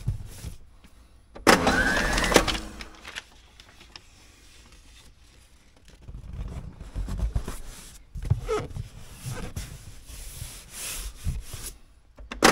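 Brown tape pulled off its roll with a loud screech about a second and a half in, lasting about a second and a half, followed by softer rustling and rubbing as the tape is pressed and smoothed onto a cardboard box.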